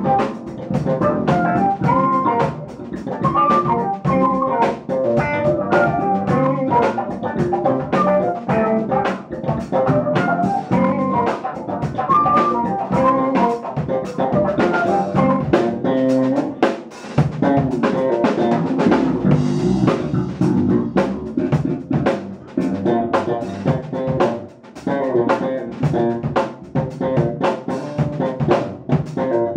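Live jazz-funk band playing: drum kit with snare and rimshot hits over electric bass, electric guitar and keyboard, with a busy melodic line on top.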